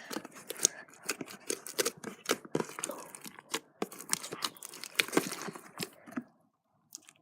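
Slime being stirred and squished in a container, making a quick, irregular run of sticky clicks and pops that stops about six seconds in.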